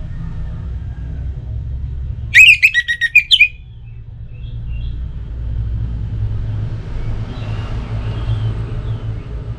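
Orange-headed thrush singing a short burst of rapid, loud whistled notes about two and a half seconds in, lasting about a second. A steady low rumble runs underneath, and fainter bird notes come later.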